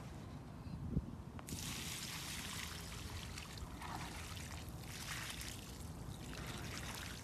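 Water poured from a plastic bucket onto a heap of clay soil and coal dust, splashing and trickling steadily from about a second and a half in, to mix coal mud. A short thump comes just before the pour starts.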